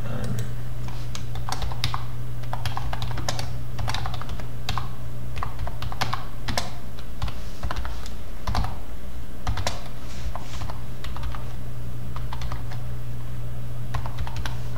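Typing on a computer keyboard: irregular key clicks in quick runs, over a steady low hum.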